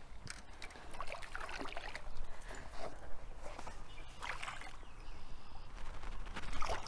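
Hooked bass splashing and thrashing at the water's surface as it is landed by hand, mixed with scuffing of boots and clothing on rocks, in irregular short bursts.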